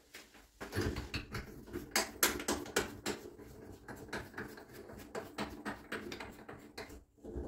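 Metal shower tap fittings being handled and worked onto the brass tap spindle by hand: a dense run of small clicks and scraping that starts about half a second in and stops just before the end.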